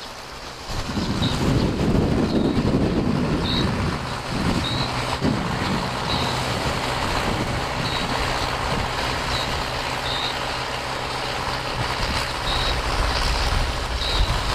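Engine of a trailer-mounted portable pump running steadily, a low, even drone that swells louder in the first few seconds. Short high chirps repeat roughly once a second over it.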